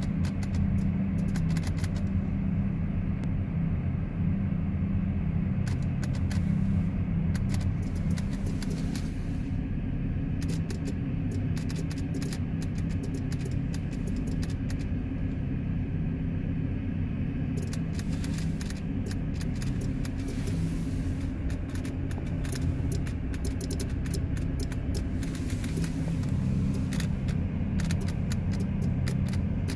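Rapid electrical clicking from a 2010 GMC Terrain, in runs with short pauses between them, over a steady low hum. The owner traces it to the key switch and the retained accessory power (RAP) relay, and the clicking stops when the auto headlights are switched off.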